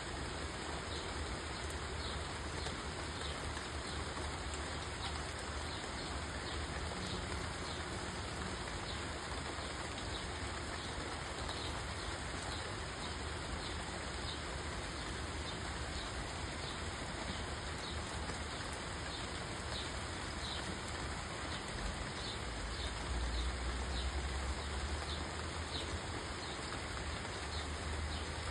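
Heavy rain falling steadily on leafy trees and a lawn, an even hiss of rainfall. Short high chirps repeat a little more than once a second throughout, and a low rumble swells briefly about three-quarters of the way through.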